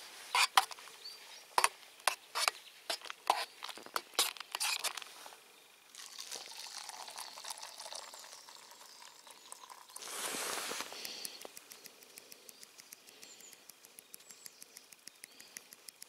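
A metal spoon clinking sharply and repeatedly against the inside of a metal camping mug as a hot drink is stirred, over the first five seconds. Later comes the softer rush of the hot drink being poured into a second metal mug.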